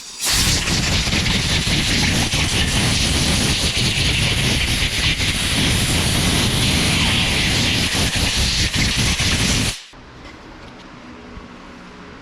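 A pressurised jet hissing steadily and loudly for about nine and a half seconds, starting sharply and cutting off suddenly.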